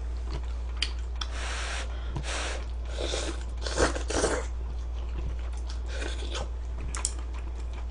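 A person chewing and biting a mouthful of aged kimchi close to the microphone, in a handful of short, irregular mouth sounds over a steady low electrical hum.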